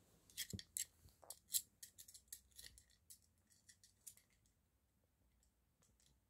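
A hard plastic egg-shaped toy clicking and rattling as a small dog noses and paws at it: a quick, irregular run of sharp clicks that thins out after about four seconds.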